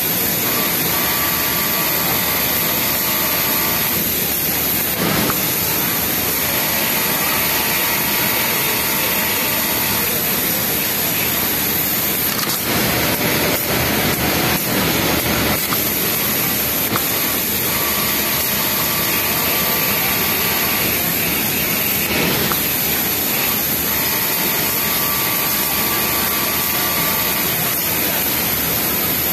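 Yamato flatlock industrial sewing machine stitching a T-shirt bottom hem in runs of about three seconds, its motor whining during each run and dropping out between them. Under it is the steady din of a garment factory floor full of other machines.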